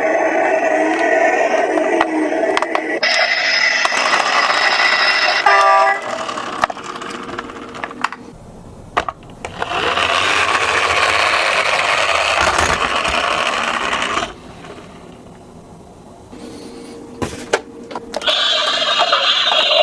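Electronic sound effects from toy ambulance and bus minicars, a warbling siren among them. The sound comes in separate stretches with quieter gaps near the middle and toward the end.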